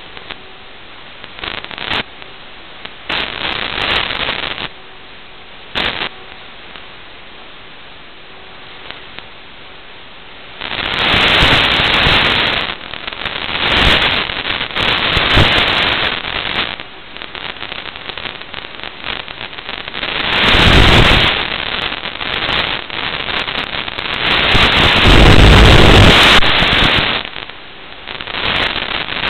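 Hiss and crackle of radio static on the analog FPV video link's audio, heard through the goggles' recording. It gives scattered crackles at first, then swells into several loud surges of hiss from about a third of the way in.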